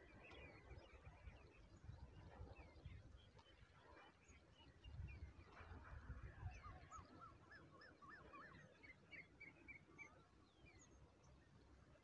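Faint birdsong of small birds chirping and twittering in the surrounding trees, with a run of quick rising whistled notes a little past halfway, over a low uneven rumble.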